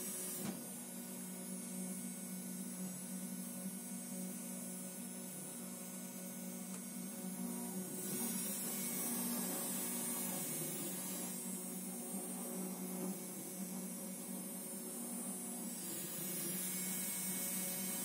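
Shenggang SK-D1830 CNC engraving machine running with its enclosure lid closed: a low, steady hum that is muffled by the cover.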